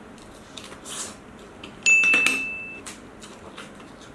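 A single bright metallic ding about two seconds in, ringing on as one high tone and fading over about a second.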